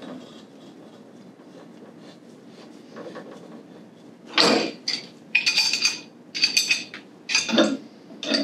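Threaded metal pipe fittings and a ball valve clinking and knocking together as sprinkler valve trim is handled and screwed into place. It is quiet at first, then from about halfway a run of sharp metallic clanks with a short ring after each.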